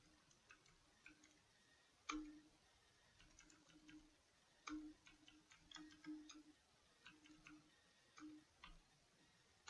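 Faint, irregular clicking of computer keyboard keys being typed, some strokes coming in quick runs and others singly.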